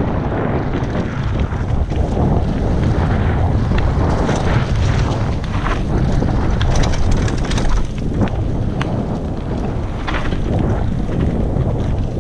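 Mountain bike riding fast down a dirt forest trail: heavy wind buffeting on the microphone over a steady tyre rumble, with frequent sharp rattles and knocks from the bike over the rough ground.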